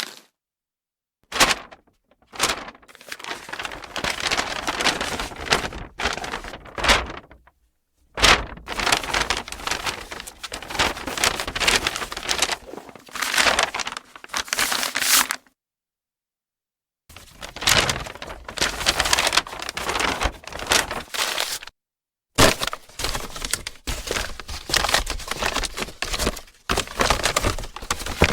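Brown paper bag being crumpled and handled, giving a loud, irregular crinkling and crackling of stiff paper, stopping and starting with several short silences between the bouts.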